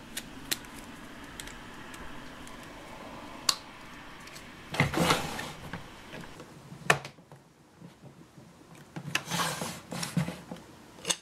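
Plastic parts of a Play-Doh Perfect Twist ice cream playset being handled and snapped together on a wooden table: a few sharp clicks and some rubbing, scraping passes of plastic.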